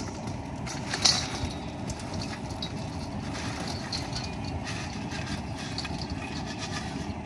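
Crawfish being poured out, their shells clattering about a second in, then clicking and rattling lightly, over a steady low rumble.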